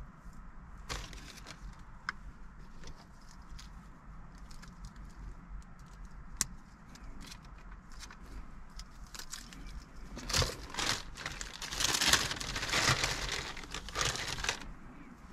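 Light clicks and rustles of wiring harness plugs and cables being handled, then, about ten seconds in, a clear plastic bag crinkling loudly for several seconds.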